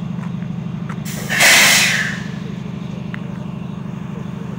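CSX SD40-3 locomotive's EMD 16-cylinder two-stroke diesel idling with a steady pulsing rumble, while the train is tied down. About a second in, a short loud blast of hissing compressed air cuts across it and dies away within a second.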